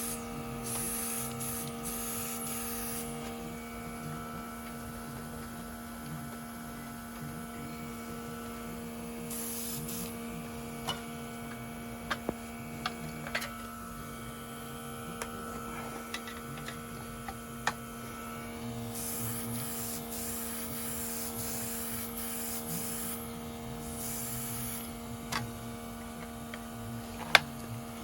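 Small nail-art airbrush compressor humming steadily, with the airbrush hissing out paint in several short bursts and a few sharp clicks, the loudest near the end.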